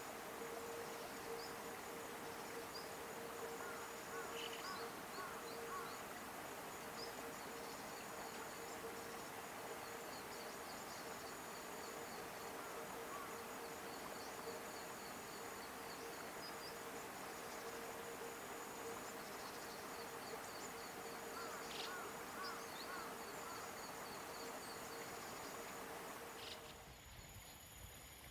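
Insects trilling: a steady high-pitched whine with repeated fast ticking runs over a hiss, with a couple of brief faint calls. The sound changes abruptly near the end.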